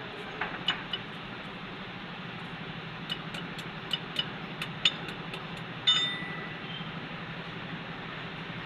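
Sharp metallic clicks: a few early on, then a run of evenly spaced clicks at about four a second, ending in a louder clink that rings briefly, over a steady background hum.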